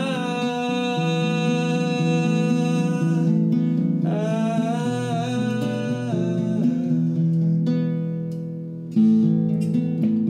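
A man singing long, held notes over acoustic guitar chords, the second note bending up and down in pitch. A loud strummed chord comes in about nine seconds in.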